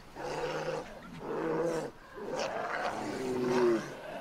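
Polar bears growling at each other in about four drawn-out calls, the last the loudest: rival bears squabbling over scraps of food.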